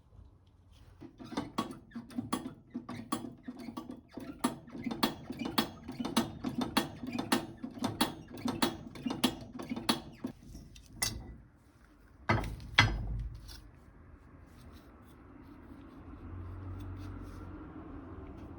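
A hand tool's mechanism clicking steadily, about two to three clicks a second for some ten seconds, then two sharp knocks close together. A faint steady hum follows.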